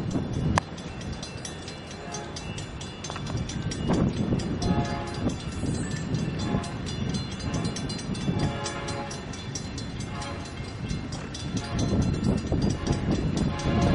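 Distant BNSF diesel freight locomotive's air horn sounding several separate blasts as the train approaches, over a low, fluctuating rumble.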